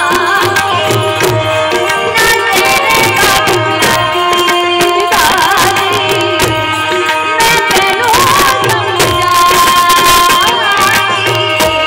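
Live Gujarati devotional folk music, an aarti to Mahadev: a woman sings over steady held harmonium notes, with tabla strokes keeping a brisk rhythm, all heard loud through a PA system.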